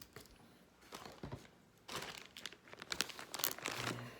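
Plastic packaging crinkling and rustling as gun-cleaning supplies are rummaged through, with small clicks and knocks, getting louder from about halfway in.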